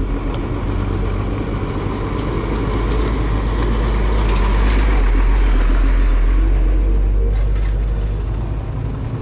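A cement mixer truck's engine rumbling past close by, swelling to its loudest about halfway through and fading as it goes, over the steady low running of the motorcycle's own engine.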